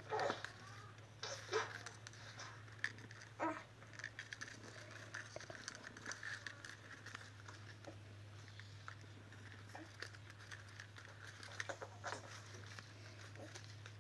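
Strips of fresh coconut leaf rustling and crinkling in the hands as they are threaded and pulled tight through a woven ketupat casing, in short irregular bursts over a low steady hum.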